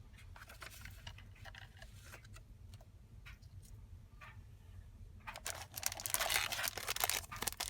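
Plastic craft packaging being handled: faint light clicks and rustles at first, then loud, dense crinkling from about five seconds in.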